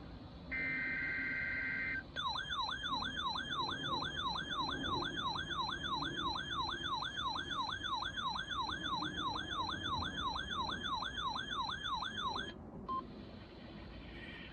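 The last burst of a NOAA Weather Radio alert data header, a short buzzy two-tone screech, then an electronic alarm tone warbling up and down about three times a second for about ten seconds before cutting off, followed by a short beep.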